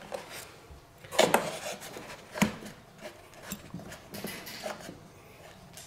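Hands fitting a fuel line connector inside a foam model jet's fuselage: scattered clicks and knocks, the loudest a little over a second in and another at about two and a half seconds, with rubbing and scraping between.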